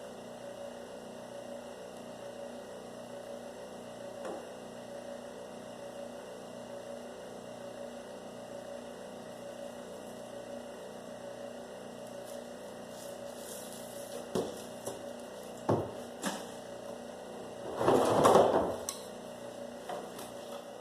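Electric copper wire-stripping machine's motor running with a steady hum. A few knocks come about two-thirds of the way through, and near the end there is a louder noisy burst lasting about a second.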